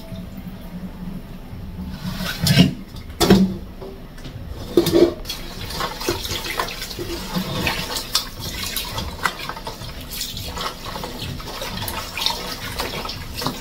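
Water pouring out of a steel mixing bowl into a stainless steel sink, with three loud clanks of the bowl against the sink in the first five seconds. Then a tap runs into the bowl while hands swish and rub raw mutton pieces in the water, rinsing the meat.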